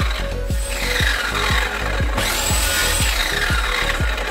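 Compound mitre saw running and cutting through thin pine strips, twice, each run about two seconds long with the motor's whine rising and falling. Background music with a steady beat plays underneath.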